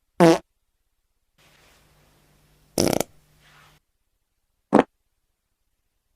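Three short fart sound effects, spaced about two seconds apart. The first is a brief fart that rises in pitch, the second is a longer and louder blast, and the third is very short.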